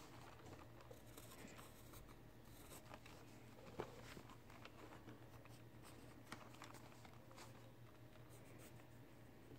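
Pencil scratching faintly across sketchbook paper in short drawing strokes, with one sharper tap a little under four seconds in.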